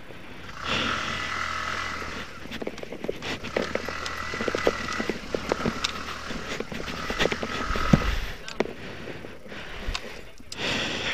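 Motorcycle engine running unevenly as the bike is worked up a rough, rocky slope, with many small knocks and clatters of stones and the bike over the ground.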